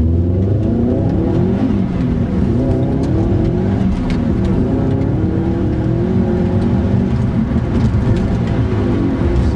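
Subaru Impreza 22B's turbocharged flat-four accelerating hard from inside the cabin, its note climbing and dropping back several times as it is driven up through the gears.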